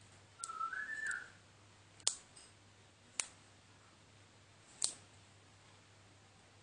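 A brief whistle-like tone stepping up in pitch about half a second in, followed by three sharp clicks about a second or more apart.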